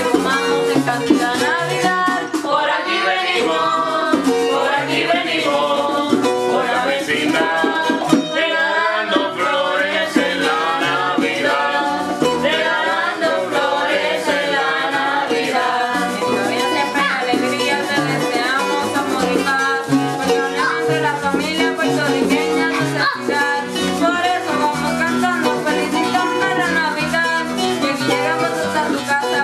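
Two acoustic guitars strumming and picking a Christmas song while a girl sings the melody.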